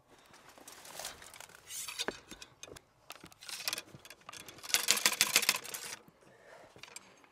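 Gear being handled: a backpack rustling and a collapsible pole being twisted and extended, with scattered light clicks and knocks and one longer, louder stretch of rustling about five seconds in.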